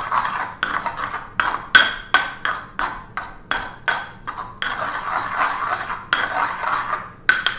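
Pestle pounding and grinding sorrel pesto in a mortar: a run of sharp taps, about three a second, each with a slight ring, then two stretches of steady grinding scrapes in the second half, and a few quick taps near the end.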